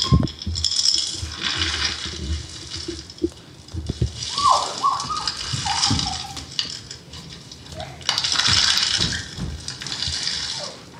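Sound-design soundtrack for a dance piece: three or four bursts of hissing, rattling noise, with a few short wavering tones about four seconds in and scattered low thuds.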